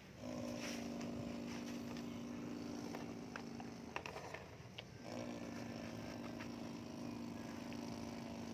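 Electric motor of a remote-control excavator whining steadily in two runs of about four seconds each, with a short pause near the middle and a few light clicks and knocks.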